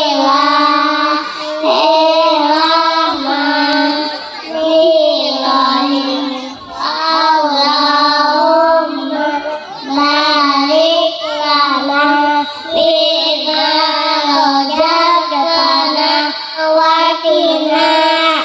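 A group of young girls singing together in unison through microphones, in held, melodic phrases.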